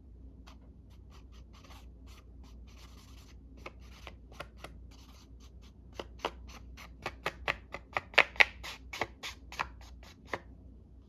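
Ink pad being dabbed and rubbed onto a paper index card to lay down streaky brown ink: a light rub, then a quickening series of short taps, a few a second, loudest near the end.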